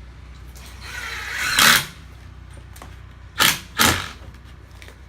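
Power screwdriver driving coated screws into wooden fascia board: one longer run that builds up, then two short bursts close together.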